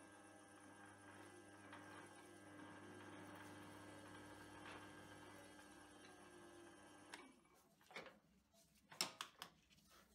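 An Optimum metal lathe runs with a steady, quiet hum while a drill in the tailstock bores into the end of an aluminium workpiece. The motor cuts off suddenly about seven seconds in. Several sharp clicks and knocks follow as the tailstock drill chuck is handled; the loudest comes about nine seconds in.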